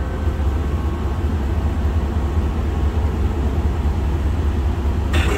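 Steady low mechanical rumble while the Cummins Onan diesel generator's start switch is held to preheat it; about five seconds in, a louder, hissier noise comes in as the generator starts up.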